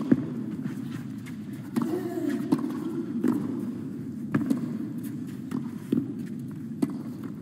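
Tennis rally on a clay court: a sharp pop each time a racket strikes the ball, about every second or so, back and forth. Under it runs the low, steady hum of a quiet crowd.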